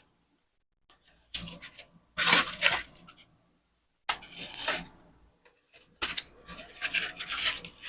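Bubble wrap and plastic packaging being handled and pulled open, in four bouts of crinkly rustling with short pauses between them.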